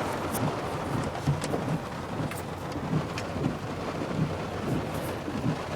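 Heavy rain falling on a truck, heard from inside the cab: a steady hiss of rain with many sharp individual drop hits and irregular low drumming.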